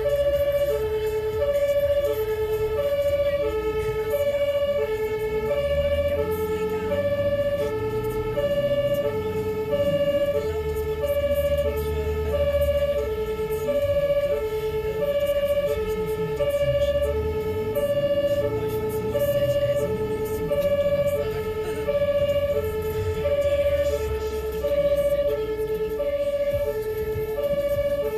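German two-tone emergency siren (Martinshorn) on an ambulance, alternating steadily between a lower and a higher note, each held about two-thirds of a second. Heard from inside the moving ambulance's cab, with engine and road rumble underneath.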